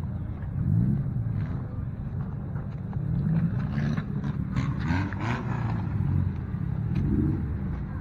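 Demolition derby car engines running and revving, their pitch rising and falling several times over a continuous low rumble.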